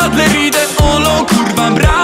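Upbeat music with a steady beat of drum hits about twice a second over a deep bass line.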